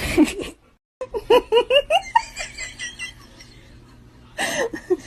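Someone laughing: a fast run of short, high-pitched ha-ha bursts that trail off, with louder bursts of laughter at the start and near the end.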